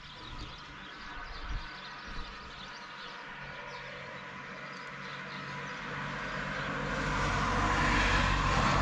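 A steady rumble with a faint hum, like a passing vehicle, swelling louder over the last few seconds.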